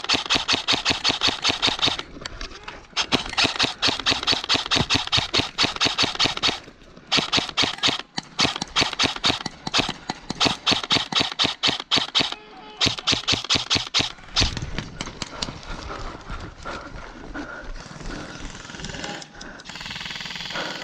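Airsoft rifle firing long full-auto bursts, a rapid run of sharp shots repeated five or so times with short pauses. About fourteen seconds in the firing stops, leaving quieter rustling.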